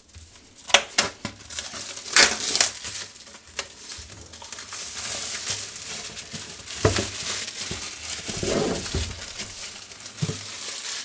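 Clear plastic shrink-wrap being torn and peeled off a cardboard box and crumpled in the hands. There are sharp crackles in the first few seconds, then steady crinkling.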